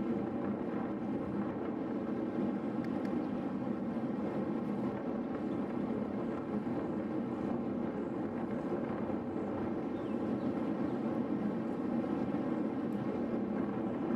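Steady rush of wind over the microphone of a camera riding on a road bicycle at speed, with tyre noise on the asphalt beneath it.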